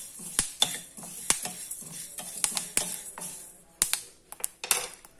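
Dry-roasting horse gram seeds stirred with a wooden spatula in a stainless steel pan: a hissing rattle of seeds with many sharp, irregular pops and clicks as the roasted seeds start to burst, the sign that the roasting is done. It thins out to a few scattered pops over the last second.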